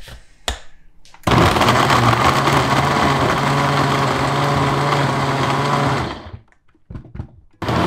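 Countertop blender running, crushing ice with frozen apple juice concentrate into a slush. After a knock or two, the motor starts about a second in and runs steadily for about five seconds, stops, and after a few clicks starts again near the end.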